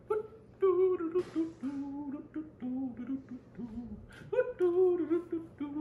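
A person humming a wordless tune: several held notes that bend up and down in pitch, with a short hiss about a second in.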